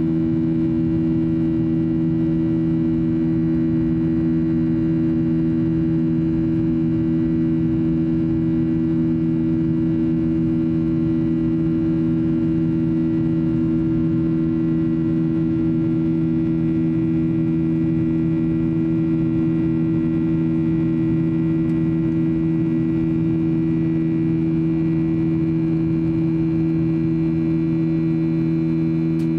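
Steady drone of a Boeing 737-800's CFM56-7B turbofan engines heard inside the cabin during the climb after takeoff: a constant low hum made of a few held tones over a rushing noise.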